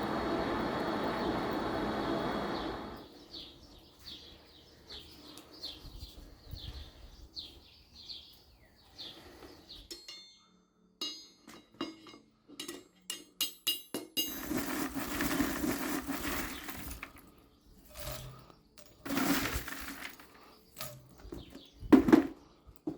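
A steady workshop noise stops about three seconds in. Then metal pieces clink and clatter on and off, with a run of quick clicks partway through and one sharp knock near the end, the loudest sound.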